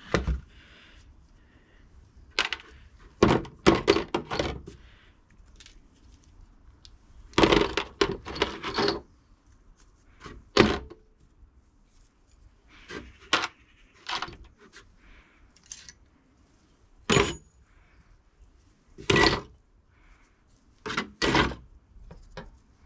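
Small steel brake caliper hardware, the clips, pins and bolts, clinking and clattering as it is handled and dropped into a plastic tub, in irregular bursts with short pauses between.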